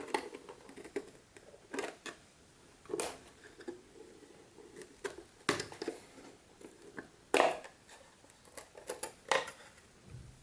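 Scattered light clicks, taps and scrapes of a wooden GARDE classic analogue chess clock and its small metal screws being handled as its back is taken off.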